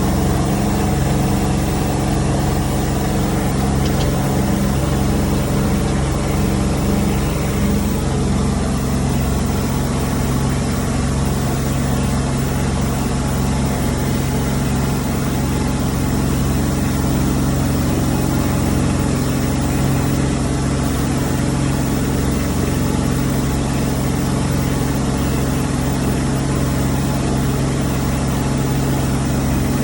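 Engine of a Maruyama Vegiking riding boom sprayer running steadily, its pitch shifting slightly about eight seconds in, over a constant hiss.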